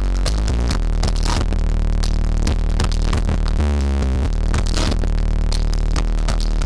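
Electronic dance music with a steady beat and heavy bass played loud through a car audio system with a bank of subwoofers, heard inside the car. The bass line dips lower a little past halfway.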